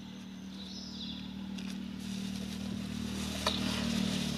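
A motor engine running with a steady low hum, growing steadily louder as it comes nearer.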